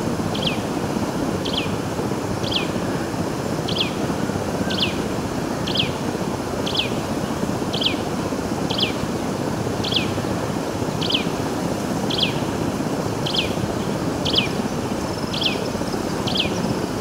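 A bird calling over and over, one short, high, downward-sliding note about once a second, over a steady rushing background noise.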